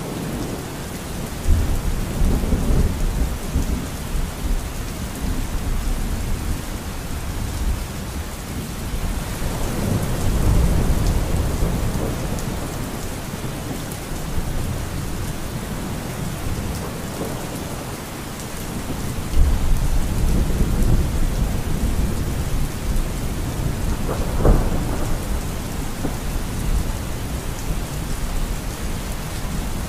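Steady rain, with low thunder rumbling up and fading away several times.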